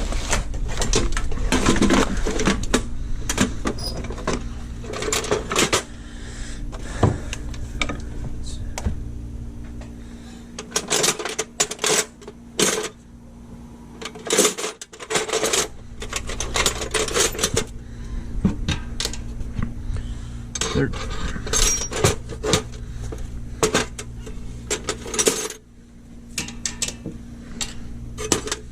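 Metal sockets and tools clinking and rattling in a box as someone rummages through a metric socket set, with many short, irregular clicks and clatters over a steady low hum.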